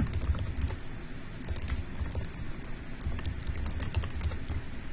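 Typing on a computer keyboard: a run of irregularly spaced key clicks as a page name is keyed into a text box.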